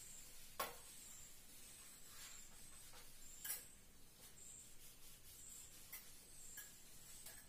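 Near silence with a few faint clicks and short strokes of a marker writing on a whiteboard.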